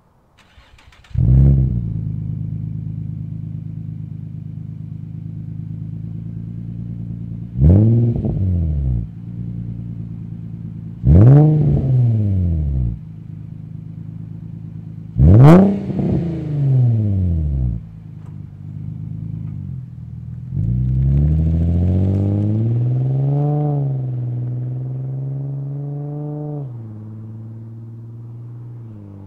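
Infiniti G35 sedan's 3.5 L VQ35DE V6 through a Z1 cat-back touring exhaust: a warm start with a flare, then steady idle broken by three quick throttle blips, the third the loudest. About twenty seconds in the car pulls away, the exhaust note climbing, dipping as it shifts and fading as it goes down the road.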